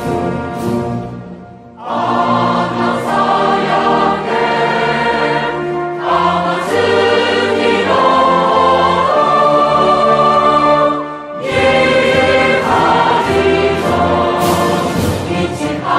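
Background music: a choir singing long held chords, with two short breaks between phrases.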